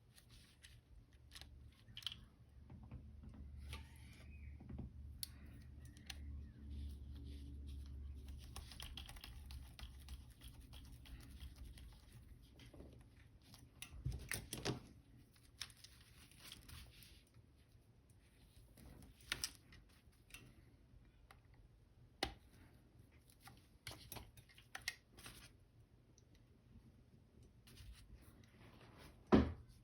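Scattered small clicks and taps of hand tools and tiny parts on a Canon A-1 camera body being reassembled, with a low rumble of handling noise through the first third and one louder click near the end.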